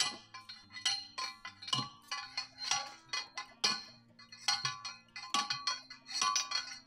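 Hand post driver pounding steel conduit into the ground: repeated ringing metal clanks, about two a second, over background music.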